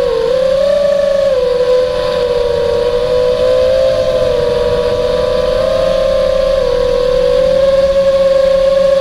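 Quadcopter's electric motors and propellers whining loudly, heard from the camera on board. The pitch rises and falls a little in the first few seconds, then holds steadier.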